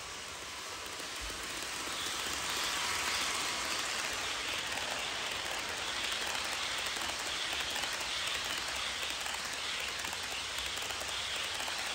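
HO scale passenger train, Alco PA diesel units and streamlined passenger cars, rolling past on sectional track: a steady rushing clatter of small wheels on the rails with faint light clicking. It grows louder over the first two seconds as the train nears, then holds steady.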